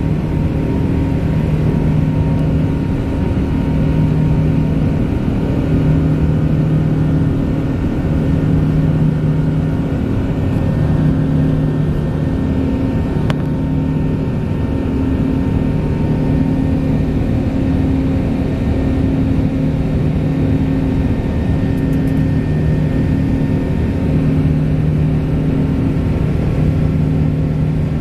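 Cabin noise inside an Airbus A380-842 climbing out after take-off: the steady rush and drone of its four Rolls-Royce Trent 900 turbofans. A low hum swells and fades every second or two.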